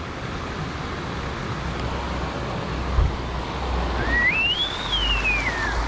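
Steady background noise of road traffic, with a low rumble. There is a single knock about three seconds in, and a whistle that rises and then falls near the end.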